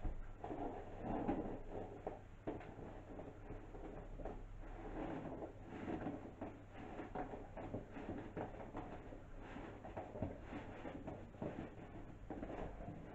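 A cardboard shipping box and its packing being handled and rummaged through: irregular rustling and scraping with light knocks.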